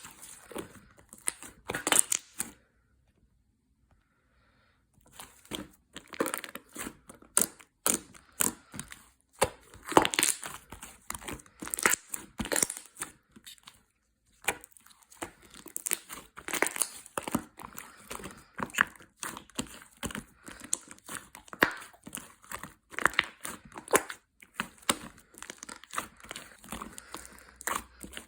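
Irregular crinkling, crackling and tearing sounds, a quick run of sharp crackles. They pause about three seconds in and again about fourteen seconds in.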